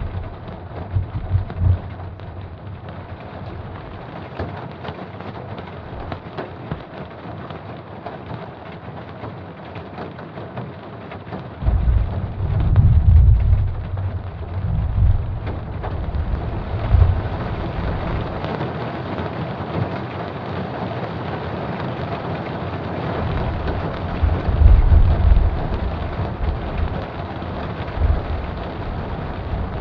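Steady rain with rolling thunder rumbling low, once about twelve seconds in and again a little before the end. The rain grows heavier past the middle.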